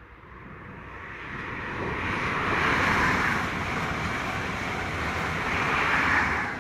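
An HST (InterCity 125) passing at speed: the noise of the leading Class 43 diesel power car and the wheels on the rails builds to a peak, the coaches rush by, and a second peak comes as the trailing power car passes before the sound drops away sharply near the end.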